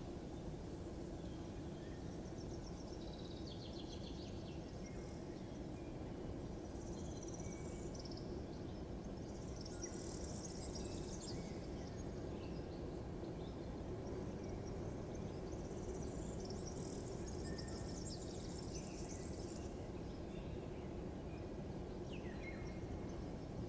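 Outdoor morning ambience: birds chirping in short bursts every few seconds over a steady low background rumble.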